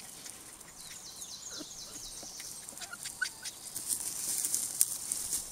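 Rustling and crackling of footsteps and puppy paws through dry leaves, twigs and grass on a forest floor, growing louder and busier in the last couple of seconds. A run of faint, high, quickly falling chirps sounds about one to two seconds in.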